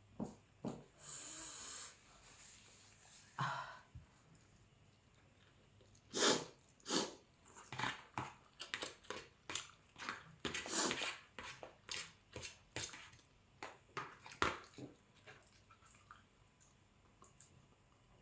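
A person taking quick, sharp, noisy breaths and sniffs in an irregular run, huffing against the burn of extra-hot chilli. A short hiss about a second in, then the bursts crowd together over the middle.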